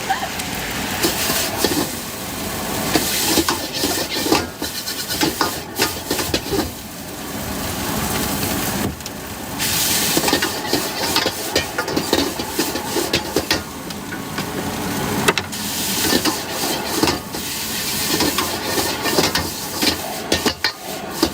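Food sizzling in a wok while a metal spatula stir-fries it, with frequent clanks and scrapes of metal on metal over a steady hiss.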